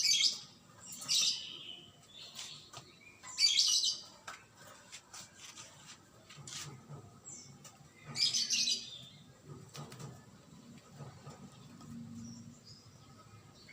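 Caged black-naped oriole giving four short, harsh, noisy calls, with faint chirps between them.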